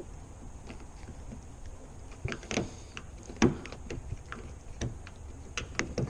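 Irregular sharp clicks and knocks of a screwdriver working at an Audi A5's outside door handle and its end cap, loudest about three and a half seconds in, over a steady low hum.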